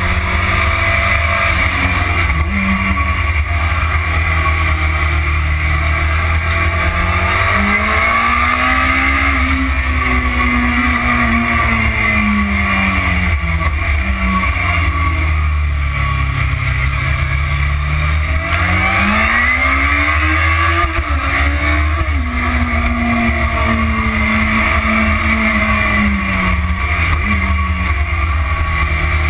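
Motorcycle engine under way on a track. The revs climb and fall slowly twice through the laps, with sudden pitch drops like gear changes, under heavy wind rush on the onboard microphone.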